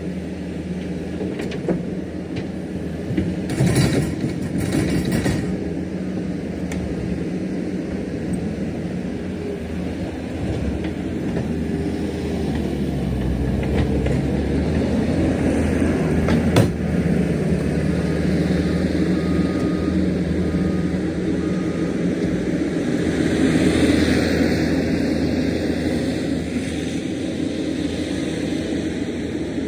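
Diesel engine of earthmoving machinery running steadily, with a few metallic clanks about four seconds in and a single knock a little past halfway. The engine note shifts and grows somewhat louder partway through.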